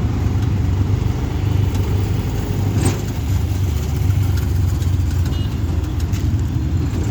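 Auto rickshaw engine running steadily during a ride, a continuous low rumble with no let-up.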